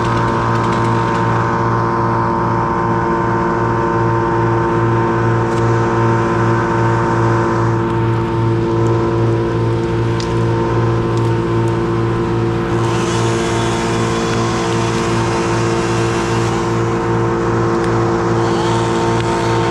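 A steady-running engine, with a low throb pulsing a few times a second.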